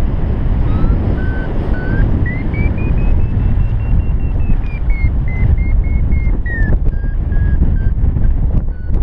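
Wind rushing over the microphone in paragliding flight, with a variometer beeping over it. The beeps step up in pitch over the first few seconds and then fall back, signalling stronger and then weaker climb in lift.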